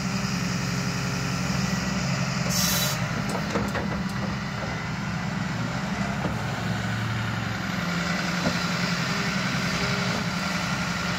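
Hyundai excavator's diesel engine running steadily, with a brief hiss about two and a half seconds in followed by a few light knocks.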